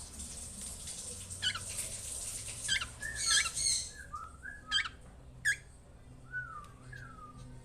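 Pet birds chirping: a run of short, sharp chirps and sweeping whistled calls, busiest in the middle.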